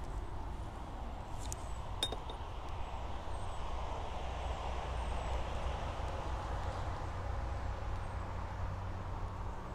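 Steady outdoor background noise, a low rumble under an even hiss, with two small sharp clicks about a second and a half and two seconds in.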